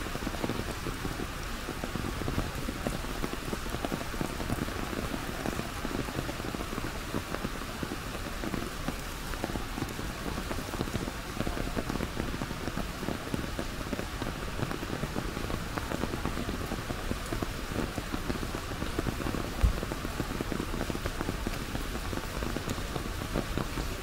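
Steady rain pattering on an umbrella held overhead, a dense even patter of drops. One brief low thump comes late on.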